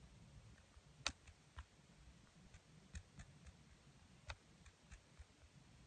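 Near silence with a low hum and a few faint, irregular clicks, the sharpest about a second in.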